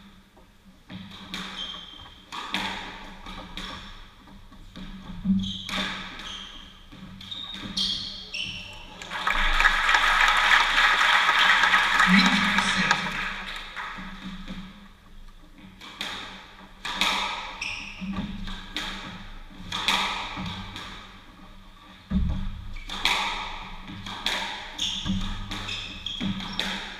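Squash rally: the ball cracking off rackets and the court walls in quick succession, each hit ringing in the hall. About nine seconds in, the audience applauds for around four seconds; then, after a short lull, the strikes of the next rally start again.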